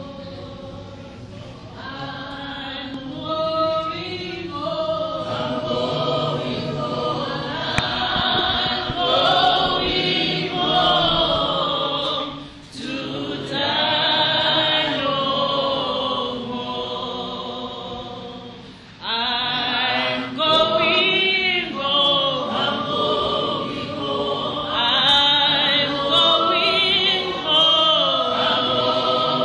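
A choir singing, with two brief breaks between phrases, the singing coming back fuller after the second one.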